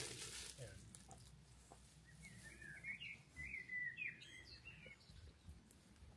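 A songbird chirping, a quick run of short, gliding notes from about two seconds in until nearly five seconds in, over quiet outdoor background.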